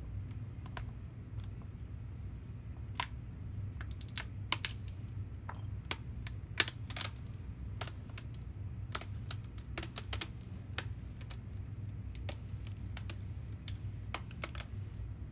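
Plastic display bezel of a Dell Inspiron laptop being pried off by hand: irregular sharp clicks and snaps as its clips release, over a low steady hum.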